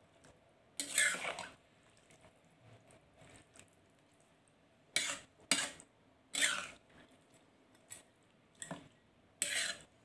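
Long-handled metal spoon scraping against a metal wok as chicken pieces are stirred in a thick curry sauce, in about seven separate strokes, the longest about a second in.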